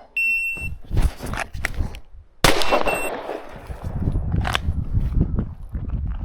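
A shot-timer start beep, then after a pause of about two seconds a single loud 9mm pistol shot fired from a concealed draw, with a short beep again just after the shot.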